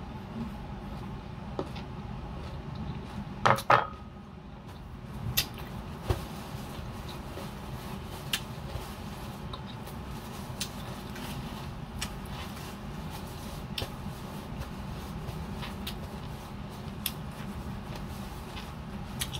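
A small glass bowl knocks against a table with a brief clink about three and a half seconds in. Small scattered mouth clicks from chewing follow, over a steady low background hum.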